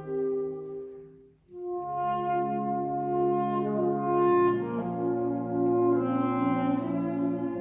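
Concert wind band playing slow, sustained chords with brass to the fore. One chord fades away to a brief gap about a second and a half in, then new held chords enter and shift to lower notes near the middle.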